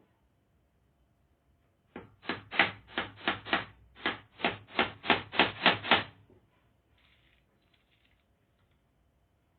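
A hammer driving a nail: a quick run of about fourteen strikes, roughly three to four a second, with a short pause partway through.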